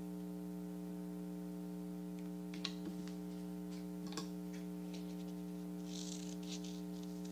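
Steady electrical hum, with a few faint clicks of paper and scissors being handled, then scissors snipping through construction paper with a light rustle about six seconds in.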